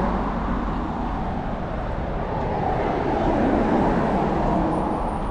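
Road traffic: a car towing a touring caravan passes close by, its tyre and engine noise swelling about three to four seconds in and then easing.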